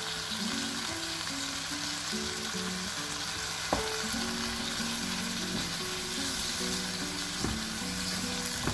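Diced tomatoes and tomato puree sizzling in ghee and spice masala in a hot non-stick wok, stirred with a wooden spatula that knocks the pan a couple of times. Background music plays over it.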